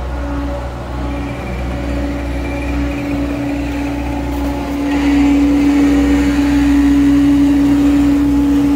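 John Deere 325G compact track loader running and travelling at close range: a steady engine drone with a steady whine above it, growing louder about five seconds in as the machine passes close by.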